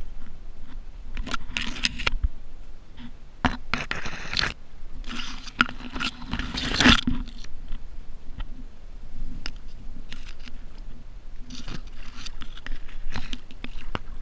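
Leaves and branches scraping and rustling against a kayak and the camera as it is pushed through overgrown willow and reeds, coming in irregular bursts with a few sharp snaps and knocks.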